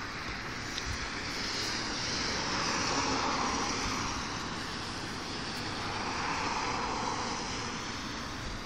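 Vehicle noise: a steady rushing sound that swells about three seconds in and again a little past the middle, like traffic going by.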